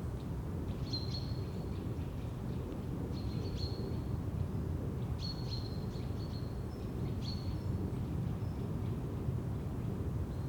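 Forest ambience: a bird gives short, high calls about every two seconds over a steady low rumble.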